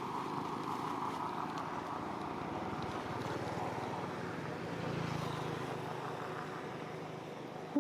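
A steady vehicle engine running, easing slightly near the end.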